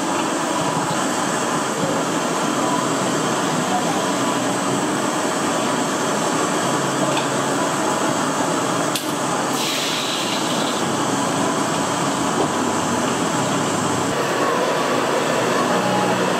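Busy street-food stall ambience: background chatter over a steady kitchen noise, with a short hiss lasting about a second, around ten seconds in.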